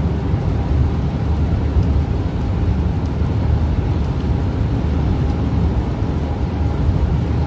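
Steady low rumble inside a moving car's cabin: engine and tyres running on a wet road.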